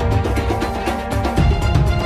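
Dramatic background music with a steady beat of heavy low drum hits under sustained tones.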